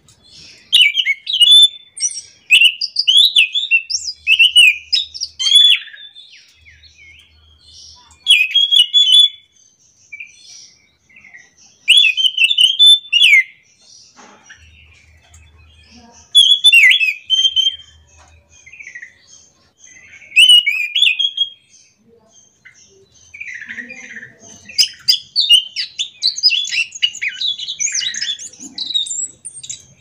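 Caged anis macan thrush singing in bursts of rapid, varied whistled phrases, one every few seconds, with a longer run near the end.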